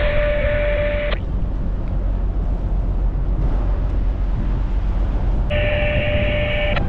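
Steady low rumble on the ship's bow. Twice a handheld radio sounds a steady tone over hiss, for about a second at the start and again near the end, each time cut off with a click.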